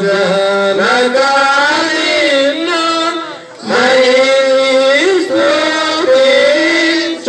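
A congregation of men and women with a male priest singing a Telugu liturgical chant, held notes in long phrases with a short break for breath about three seconds in.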